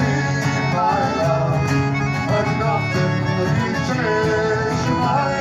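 Folk band playing an instrumental passage between verses, with piano accordion and strummed acoustic guitar.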